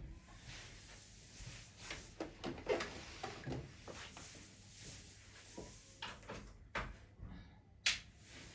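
Irregular clicks, knocks and rustling of objects being handled, with a sharp click near the end.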